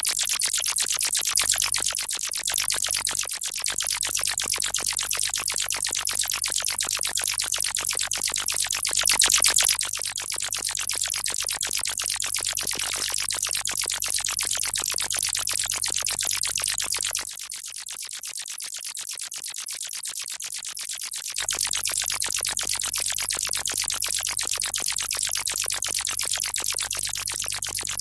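Synthesized sci-fi creature sound effect meant as alien spiders munching a brain: a dense stream of rapid crackling clicks over a steady low hum. There is a brief louder swell about nine seconds in, and the hum drops away for a few seconds after the middle.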